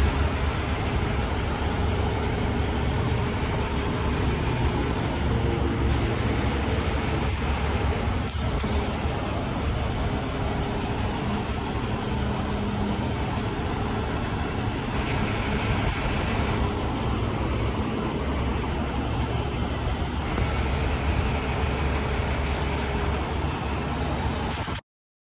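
Fire ladder truck's diesel engine idling, a steady low rumble that cuts off suddenly near the end.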